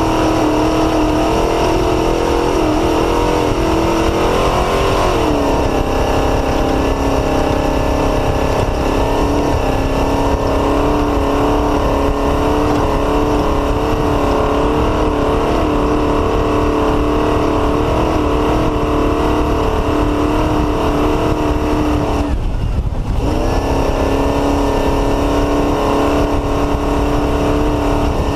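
Off-road race car's Mullenix-built engine running hard at steady high revs, over a constant rough rumble. The note steps down in pitch about five seconds in, and drops away for under a second near the end before picking straight back up.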